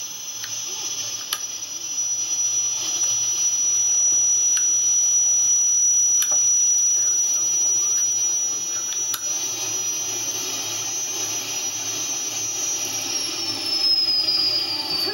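Twin helicopter turbine engines powering a jet boat, running with a steady high-pitched whine over a rushing hiss. Near the end the whine starts to fall in pitch as the turbines slow.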